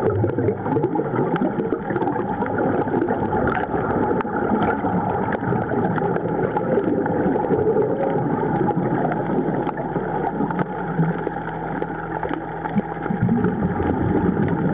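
Underwater bubbling and gurgling from air escaping a surface-supplied breathing hose's regulator, heard muffled through a submerged camera, a dense crackle dotted with small pops. A low steady hum joins in for a couple of seconds about ten seconds in.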